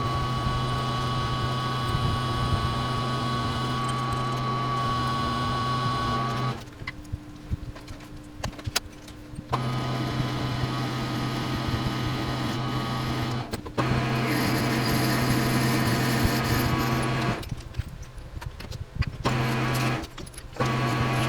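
Metal lathe motor running with a steady hum while turning a spacer from 1-inch tubing, switched off and restarted several times: it stops about six seconds in, starts again about three seconds later, and has shorter pauses near the middle and toward the end.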